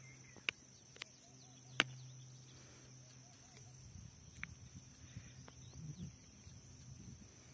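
Quiet outdoor ambience: a faint steady hum with soft chirps, three sharp clicks in the first two seconds, and low rustling rumble in the second half.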